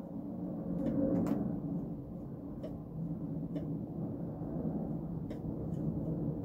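A few scattered light clicks and taps, about six over several seconds, over a steady low hum, from work filling old track holes in a model railway baseboard.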